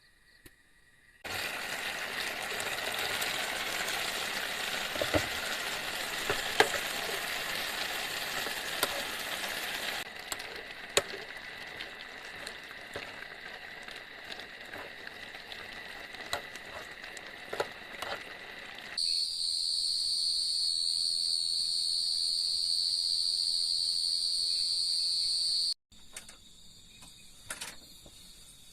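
A string of abruptly cut outdoor sounds: a steady hiss with scattered clicks, then a loud, steady, high-pitched insect drone that cuts off suddenly, followed by faint clicks.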